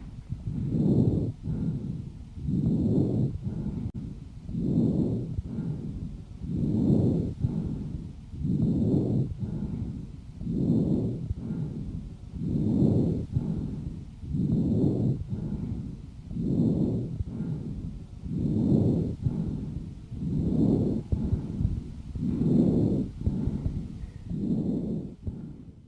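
Harsh (rough) lung breathing heard through a stethoscope: a steady cycle of breaths about one every two seconds, each a louder rush followed by a softer one, with inhale about as long as exhale. This is the breath sound of small bronchioles narrowed by inflamed mucosa, as in bronchitis or bronchial asthma.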